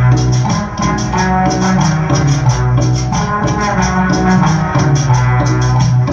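Cumbia music playing, with a steady rhythm of short high percussive strokes over a bass line and melody.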